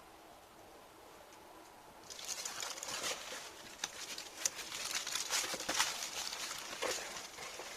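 Paper being crumpled and rustled by hand, a dense crackling that starts suddenly about two seconds in and carries on with many sharp crinkles.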